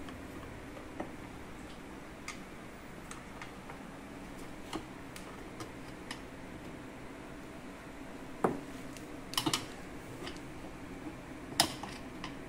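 Scattered light clicks and knocks of hands handling the wiring harness and plastic parts around a scooter engine: a sharp knock about two-thirds of the way in, a quick run of three clicks a second later, and another near the end, over a steady low hum.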